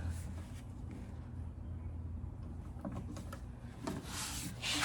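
Hand tools working on the rear shock absorber's upper mounting bolts: a few faint metallic clicks, then a scraping rub near the end as an 18-inch bar and socket are worked onto the bolt, over a steady low hum.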